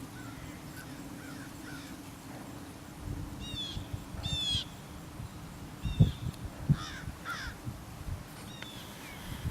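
Crows cawing, several harsh calls about four seconds in and again near seven seconds, with a couple of faint low thuds in between.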